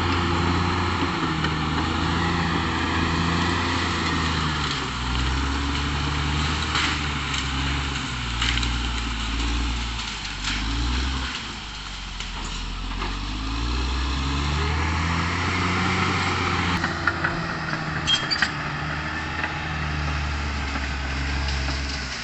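Caterpillar D6R XL bulldozer's diesel engine working, its pitch rising and falling as the load changes, with a few sharp knocks and clanks.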